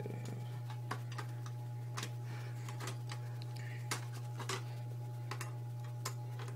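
Scattered, irregular plastic clicks and taps of a prying tool working at the stuck clips of an Xbox 360's plastic case, the sharpest about four seconds in, over a steady low hum.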